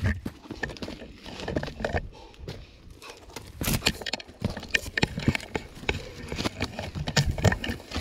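Irregular knocks, scuffs and rustles of a hiker's boots and camera pole against rock and brush while scrambling down a steep rocky slope. The knocks come thickest in the second half.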